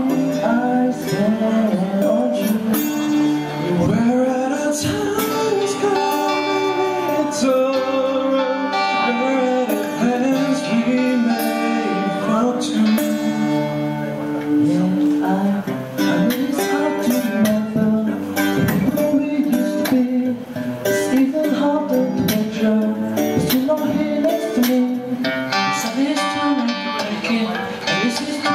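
Two acoustic guitars strummed and picked under a man's singing voice, amplified through microphones: a live acoustic cover performance.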